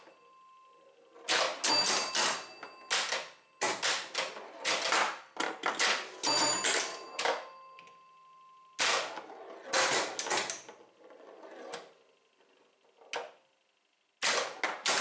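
Bally 4 Queens electromechanical pinball machine in play: bursts of rapid clacking from bumpers, relays and score reels, with ringing tones over the clusters. It goes quiet for a moment near the end.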